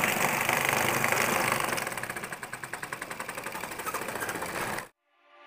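A small electric motor running a cardboard model wheat thresher. From about two seconds in it is quieter, with a fast, even beat. It cuts off sharply near the end, and music starts to fade in.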